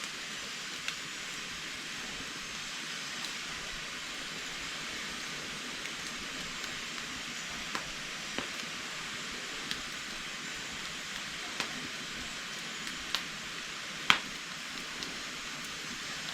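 Wood fire burning in an agungi, the firebox under a Korean cast-iron cauldron: a steady hiss with scattered small crackles and one louder pop about fourteen seconds in.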